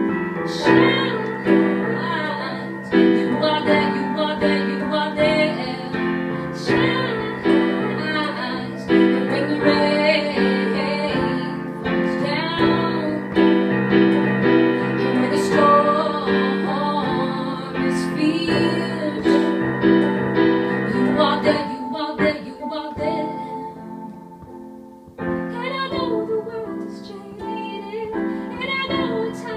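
Live music: a woman singing over piano chords. The music drops away briefly about three-quarters of the way through, then comes back in.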